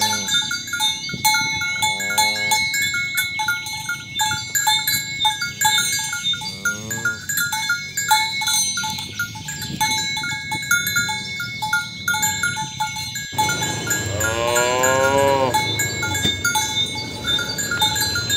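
Cattle mooing several times over the steady clanking of cowbells, the longest and loudest moo coming near the end.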